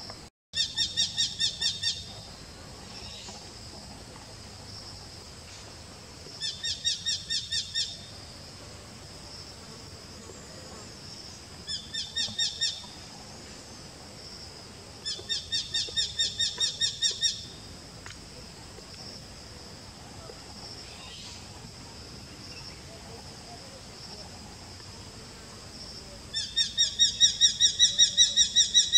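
Eurasian hobby calling: five runs of sharp, high, rapidly repeated notes, about six a second, each run lasting one to two seconds with pauses between. The last run, starting near the end, is the loudest.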